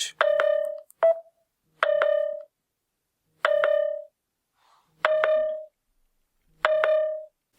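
Samsung Galaxy Note 20 Ultra sounding its moisture-detected alert: a short pitched beep repeating about every second and a half, each starting with a click. It warns that water is still in the USB port with the charger plugged in.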